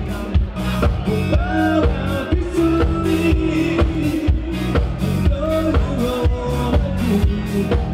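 Live rock band playing: electric guitar, bass guitar and drum kit in a steady beat, with a lead line of bent notes and one long held note over the top.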